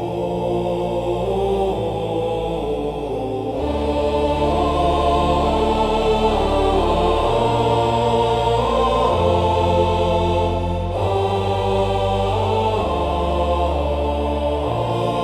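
Dark Nordic-style cinematic war music: low wordless choral chanting held over deep sustained bass notes that change every couple of seconds, the music growing fuller about three and a half seconds in.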